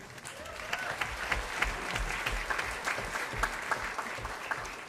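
Audience applauding: many hands clapping, starting at once and tapering off near the end.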